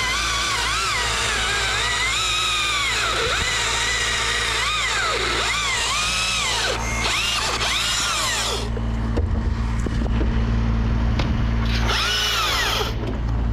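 Husqvarna T542i XP battery chainsaw cutting: its electric motor whines, the pitch dipping and recovering again and again as it loads up in the cut without stalling. The whine stops about nine seconds in, then comes back in a short burst near the end, over a steady low hum.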